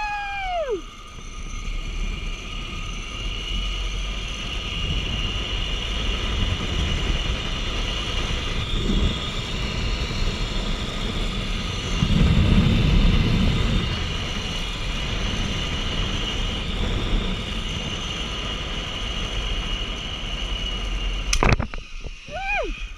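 Zipline trolley pulleys running along the steel cable with a steady high whine, under heavy wind buffeting on the microphone that swells about halfway through. The whine ends with a sharp knock near the end as the trolley reaches the landing.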